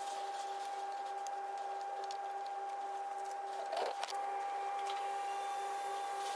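Steady machine hum with a high steady tone and a lower tone that pulses quickly, plus a brief rustle about four seconds in.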